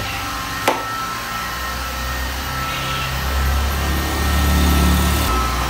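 Steady whooshing machine noise like an electric blower running, with a sharp click about 0.7 s in. A low hum swells up from about three seconds in and cuts off suddenly near the end.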